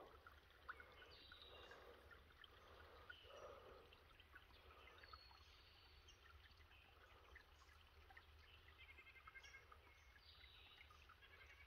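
Near silence: faint outdoor ambience with a few faint, short, high chirps from distant birds scattered through.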